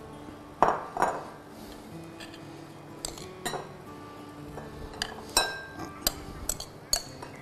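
Glass bowl clinking as chopped herb salad is handled and mixed: a string of sharp clinks, some ringing briefly, over soft background music.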